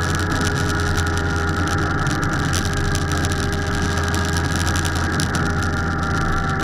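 Motorcycle engine running steadily while riding, its note falling slightly near the end.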